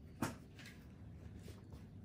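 Quiet room tone with one sharp click about a quarter second in, followed by a few fainter ticks.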